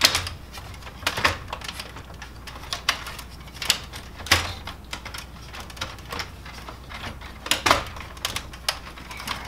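Irregular plastic clicks and knocks as a fusing unit is worked and aligned into the frame of a Kyocera FS-4200/4300 laser printer. About five of the knocks are sharper than the rest.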